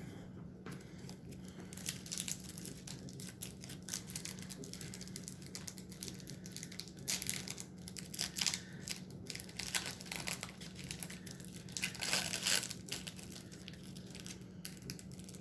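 A pack wrapper of 1993 Skybox DC Cosmic Teams trading cards being torn open and crinkled by hand, irregular crackling with louder crinkly bursts about seven, eight and a half and twelve seconds in.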